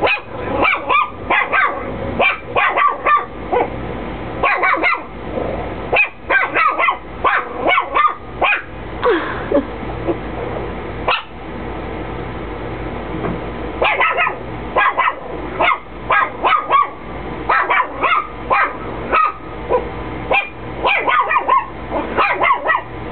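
Chihuahua barking repeatedly in quick runs of short barks. There is a lull a little before halfway that is broken by a single lone bark, and then the runs start again.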